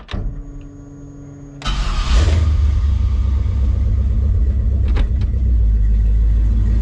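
Chevrolet C10 pickup's engine being started: a steady whine as the key is turned, then about a second and a half in the engine catches with a brief rev and settles into a loud, steady idle. A single sharp click comes near the end.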